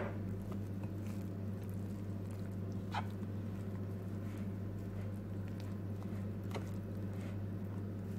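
Metal spoon stirring flour and lukewarm water into a shaggy pizza dough in a glass bowl: soft, faint squishing and scraping, with two light taps of the spoon, over a steady low hum.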